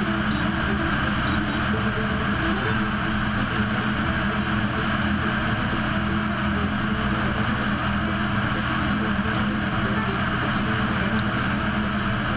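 Steady drone of a light single-engine airplane's piston engine and propeller in level cruise flight, with a constant hiss of rushing air.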